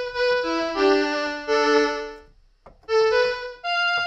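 Technics SX-K200 electronic keyboard playing a short run of single notes, several overlapping as they ring on with sustain. The run pauses briefly about halfway through, then a few more notes follow.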